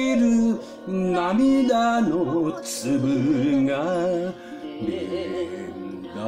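Enka singing: a line of the song sung with wavering vibrato and long held notes over instrumental accompaniment.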